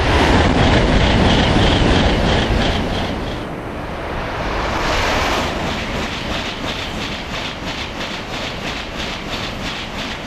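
A 500 Series Shinkansen passing at speed: a loud rush of air and wheel noise, strongest in the first few seconds, with a steady rhythmic clatter of wheels as the cars go by, dying away at the end.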